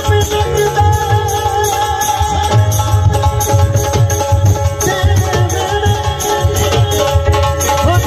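Live Punjabi devotional music: a dhol drum beaten in a steady, driving rhythm, with held melody notes over it.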